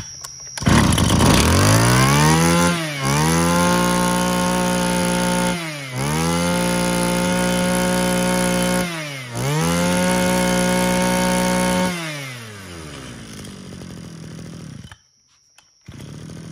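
Mitsubishi TL261 26cc two-stroke brush cutter engine starting, then revved up to high speed three times. Each rev is held steady for a few seconds with a brief drop between them. Near the end it falls back and dies away.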